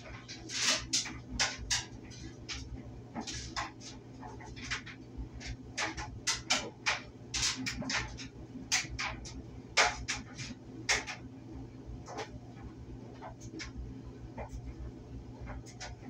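Clothes dryer running: a steady low hum from the motor and drum, overlaid by irregular clicks and knocks as the load tumbles, busiest in the first two-thirds and sparser near the end.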